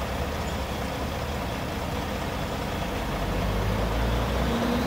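Heavy dump truck's diesel engine running at low revs close by, a steady low rumble that grows somewhat louder about three seconds in.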